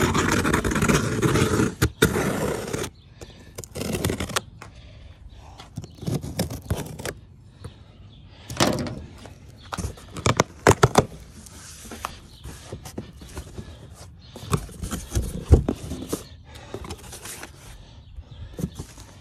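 A knife slitting the packing tape along a cardboard box, a loud rasping scrape for about the first three seconds. Then the cardboard flaps are pulled open and the box is handled, with scattered scrapes, rustles and knocks.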